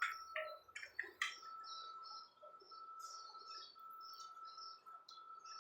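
Small birds chirping, many short high calls in quick succession, over a steady thin high-pitched tone. A few sharp taps sound in the first second or so.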